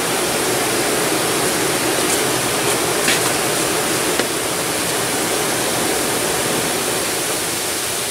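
Steady rushing hiss with a few faint clicks about two to four seconds in.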